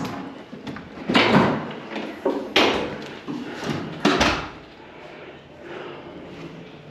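Several sharp knocks and bangs, about six in the first four seconds, then a quieter stretch.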